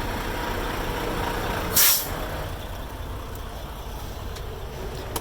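Semi truck's air parking brake being set: one short, sharp hiss of released air about two seconds in, over the steady low rumble of the idling truck engine.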